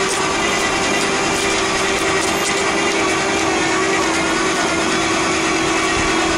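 Motor-driven pipe-cleaning cable running steadily, with a continuous hum that dips slightly in pitch about three seconds in, over a dense rasping noise.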